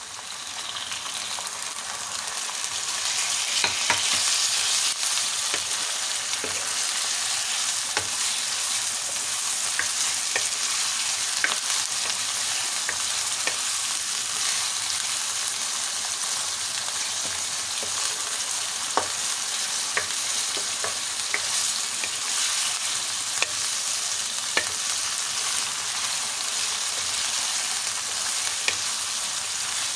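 Raw minced meat sizzling in hot oil with onions in a non-stick karahi. The sizzle builds over the first few seconds as the meat goes in, then holds steady, with scattered clicks and scrapes of a wooden spoon stirring it.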